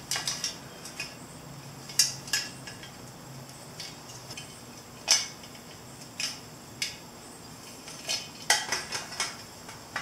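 Scattered light metallic clinks and clicks from handling a motorcycle's steel headlight bucket and working its mounts and wiring loose during removal, with a quick run of clicks near the end.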